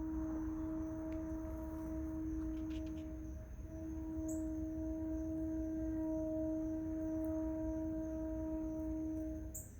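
A steady, even-pitched hum with a couple of overtones, broken once briefly about three and a half seconds in and stopping near the end.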